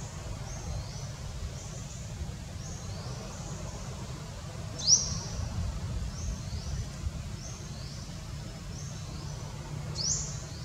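Outdoor ambience of high, thin chirps repeating every half second or so, with two louder upward-sweeping chirps about five seconds in and near the end, over a steady low rumble.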